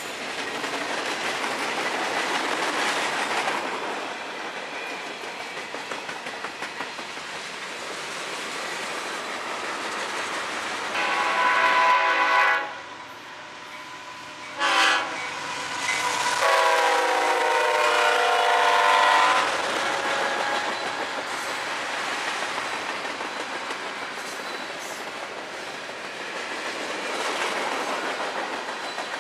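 Freight train rolling past, its wheels clicking over the rail joints. About 11 seconds in a diesel locomotive's air horn sounds; after a short break it gives a brief toot and then a longer blast of about three seconds as the CSX locomotive approaches. The cars' rolling and clicking carry on after the horn.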